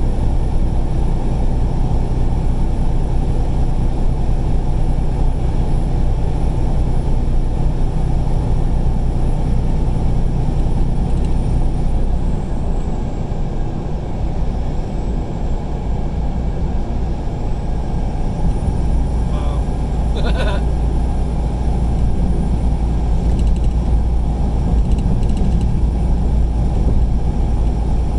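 Steady engine and road noise inside a semi-truck cab at highway speed, heavy and low, easing slightly for a few seconds midway. A brief higher-pitched squeak sounds about twenty seconds in.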